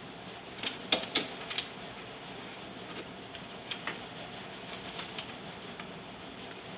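Scattered sharp metallic clicks and taps from hand tools working the bolts of a motorcycle's stock exhaust mount, with a quick cluster of clicks about a second in the loudest, over a steady faint hiss.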